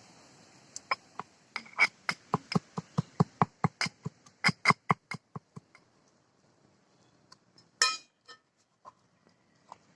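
A quick run of sharp knocks, about four a second for some five seconds, like a knife chopping or a pestle pounding food, followed by a single louder clatter and a few light clicks.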